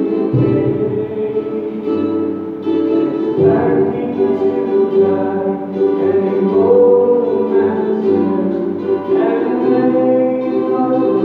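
A man singing a ballad, accompanying himself on a ukulele.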